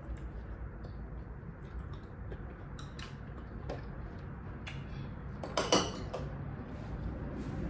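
Metal fork clinking against a small glass bowl of canned peaches: a few light clinks, then a louder cluster of glass-and-metal clatter about five and a half seconds in.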